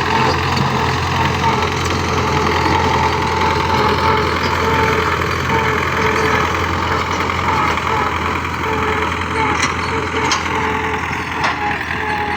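Combine harvester running steadily, a continuous engine and machinery noise that holds level throughout.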